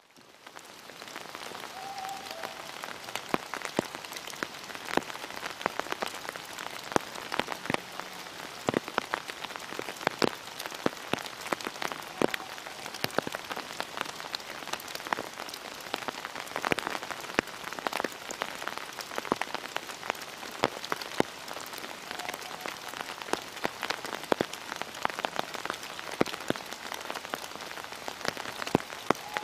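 Rain falling on the dead leaf litter and bare branches of a forest: a steady patter with many scattered sharper drips, fading in over the first second.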